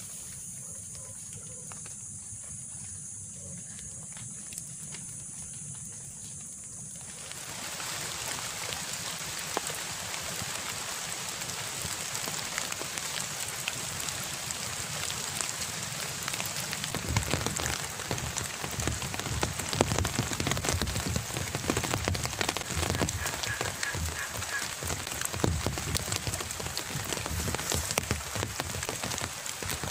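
Rain falling on a river and the leaf litter of its bank, starting about seven seconds in as an even hiss and getting heavier, with close, heavier drop hits from about halfway on.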